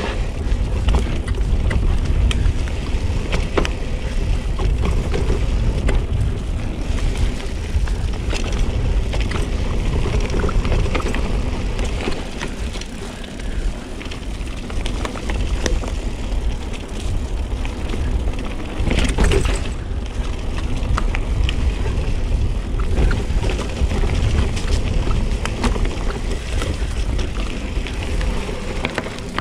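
Full-suspension mountain bike descending a steep, rutted, rocky trail: tyres rolling over stones and the bike rattling with many small knocks, over a constant low rumble of wind on the microphone.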